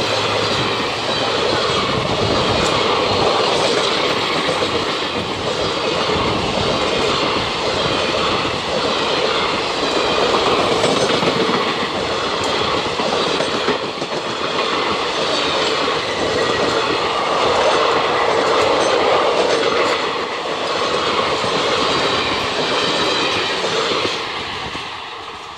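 Express-train passenger coaches passing close at speed: the steady noise of wheels running on the rails, with a light repeated clatter. It fades out near the end.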